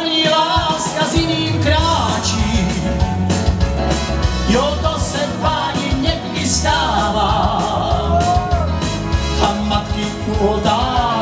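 Live keyboard music with a steady beat and bass under a melody line whose notes slide and waver in pitch, in a stretch without words between sung lines of a song.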